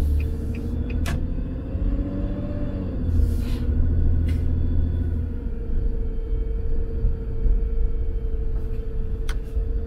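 Car driving slowly, heard from inside the cabin: a low road and engine rumble with a steady hum that rises a little and falls back about two to three seconds in. A few light ticks in the first second.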